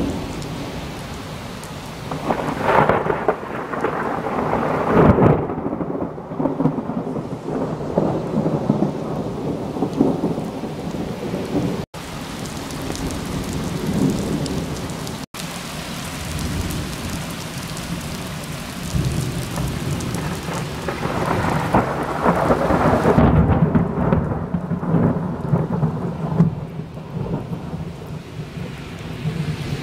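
Close thunder rolling over steady rain, with two long rumbles. The first builds a few seconds in, peaks, then rumbles away over several seconds. The second swells about two-thirds of the way through and fades near the end.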